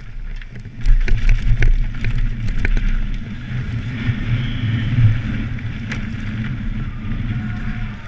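Downhill mountain bike at speed on a dirt trail, heard from a camera on the bike: wind buffeting the microphone and tyres rumbling over the ground. From about a second in comes a run of clattering knocks and rattles from the bike over rough ground.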